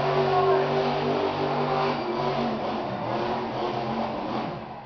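Monster truck engine running hard under power. Its note holds steady for the first couple of seconds, then grows less distinct and fades toward the end as the truck moves away across the dirt.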